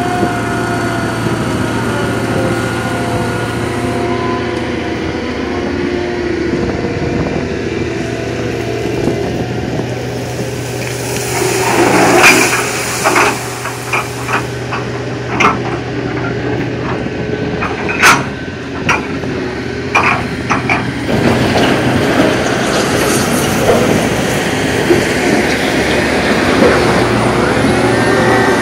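Heavy diesel engine of a Liebherr HS 853 dragline excavator running steadily. About halfway through, a run of sharp knocks and clatter comes as the dragline bucket tips gravel onto a stockpile. Near the end a wheel loader's engine revs as it pushes into the gravel pile.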